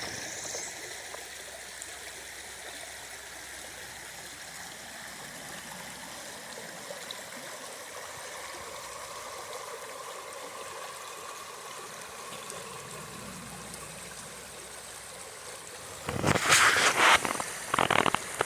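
Small stream trickling steadily over rocks. Near the end, a few loud, short bursts of rustling noise cut over it.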